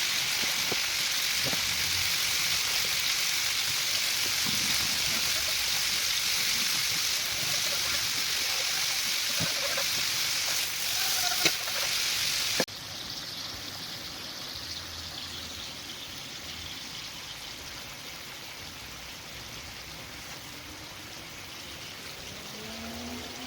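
Food frying in hot oil in a kazan: a steady sizzle. About halfway through it drops suddenly to a quieter sizzle.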